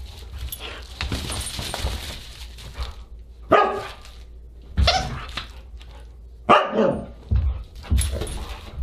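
Siberian husky barking in several short calls that bend up and down in pitch while it plays with toys, with some low thuds in between.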